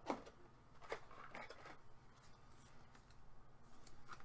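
Faint rustling and a few soft clicks of a trading card being handled in gloved hands.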